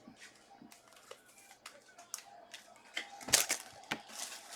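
Trading cards being handled and flipped through by hand: soft swishes of card stock sliding over card and light clicks, with a louder couple of swishes a little past three seconds in.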